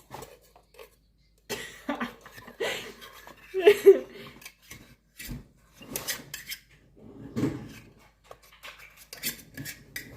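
Kitchen utensils and dishes clattering: a spoon and measuring cup clinking and scraping against a mixing bowl as butter is measured in, a string of uneven clicks and knocks.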